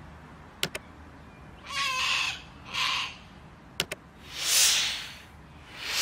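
Two quick double clicks of a computer mouse, with two harsh screeches from a sulphur-crested cockatoo between them. Near the end come swelling whooshes of hiss that rise and fall, louder than the rest.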